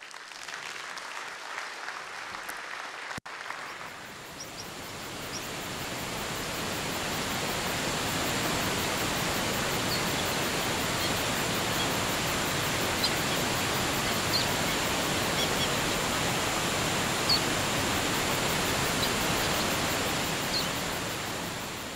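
Brief audience applause, cut off abruptly about three seconds in. Then a waterfall ambience fades up and holds: steady rushing water with occasional faint, short bird chirps.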